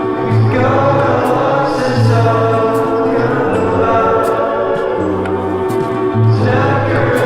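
Background music: choral singing over a steady bass line.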